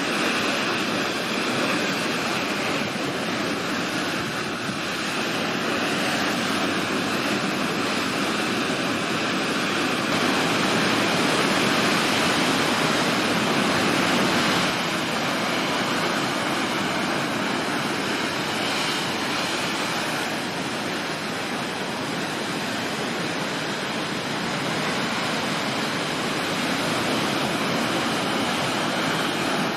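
Storm surf: heavy waves breaking continuously, a steady rushing noise that grows a little louder from about ten seconds in and eases back around fifteen seconds.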